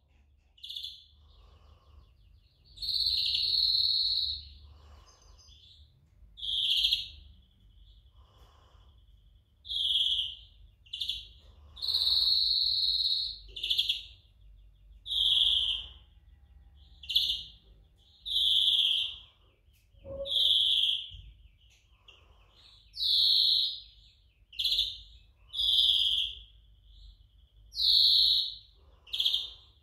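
Young European greenfinch singing: bright high phrases repeated every second or two, some short and a few drawn out for a second or more.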